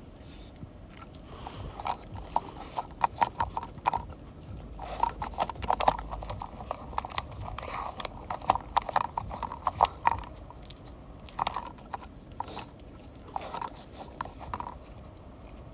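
A boxer puppy licking and lapping whipped cream out of a small paper cup: quick runs of wet, smacking licks with short pauses between them.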